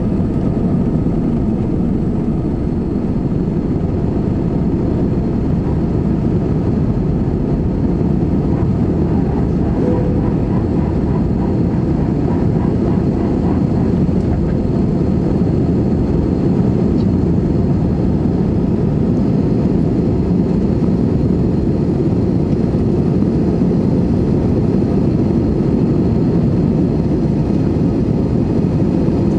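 Airbus A320-216's CFM56 engines at take-off thrust, heard inside the cabin over the wing: a loud, steady engine and airflow noise through the take-off roll, lift-off and initial climb.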